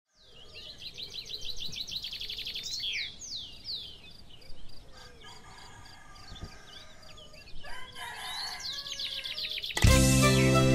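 Small birds chirping in rapid runs of quick, high, descending notes, with scattered fainter calls in between. Music comes in suddenly near the end.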